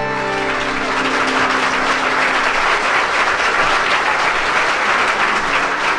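Audience applauding steadily. The band's last held chord, led by accordion, rings under the clapping for the first two seconds or so and fades out.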